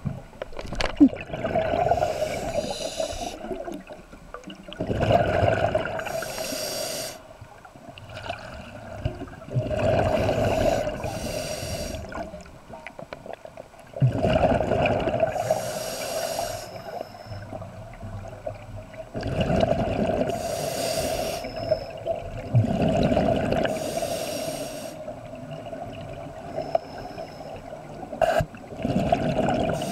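Scuba diver breathing through a regulator underwater: a hiss on each inhale and a gush of bubbling on each exhale, repeating about once every four to five seconds.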